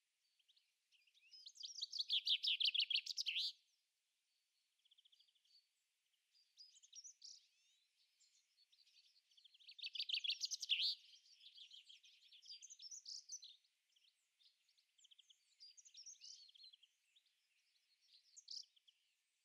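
Small songbirds singing outdoors. A loud, fast, trilling song phrase comes about a second in and another about ten seconds in, with quieter chirps and calls from other birds in between.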